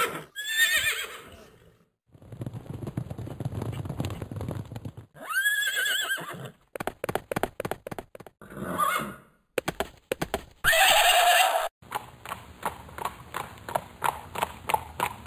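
A horse neighing in short calls about a second long, once at the start, once about five seconds in and once about eleven seconds in, with hoof clops in between and a steady run of clip-clopping hoofbeats, about two or three a second, in the last few seconds.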